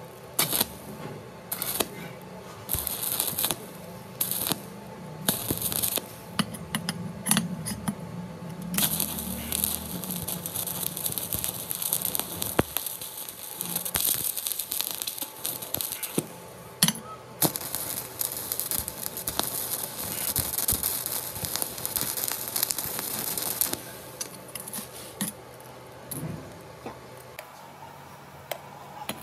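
Stick (shielded metal arc) welding a steel sprocket to a steel tube: the arc crackles and sizzles in short bursts at first, then burns in one long continuous run before stopping. A few light clicks and knocks follow near the end.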